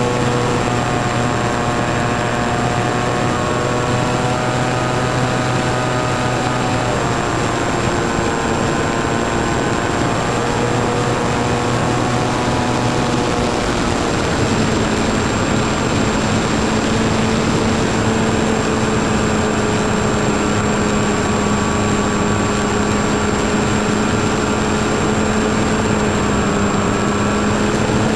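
A model airplane's motor and propeller running steadily under a rush of wind, heard from a camera on board; the hum's pitch drops slightly about halfway through.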